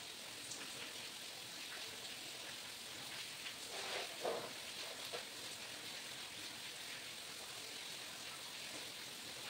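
A steady, even hiss like light rain, with a few brief faint sounds clustered about four seconds in.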